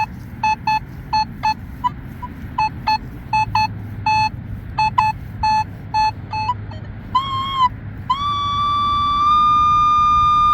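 Nokta Legend metal detector sounding short, low beeps about twice a second as the coil is swept. About seven seconds in comes a brief wavering tone, then a long, steady, higher tone that holds to the end: the detector sounding off on a target. Wind rumbles on the microphone underneath.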